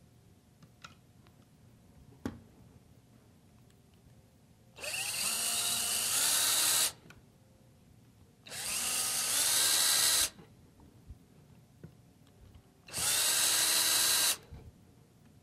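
Cordless drill driving the screws that fasten a speaker's front baffle to its cabinet, in three runs of about two seconds each. Each run rises in pitch as the motor spins up, then stops. A single sharp tap comes about two seconds in.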